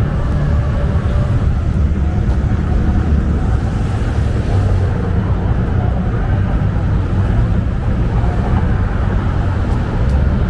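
Street traffic: a steady low rumble of cars on a city street, with a car driving past near the end.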